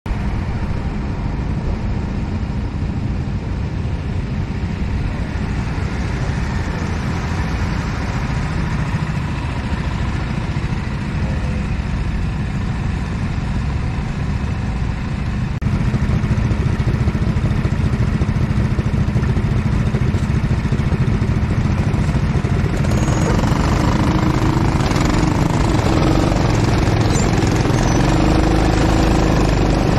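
Go-kart engine running steadily, stepping up in level about halfway through and busier in the last few seconds.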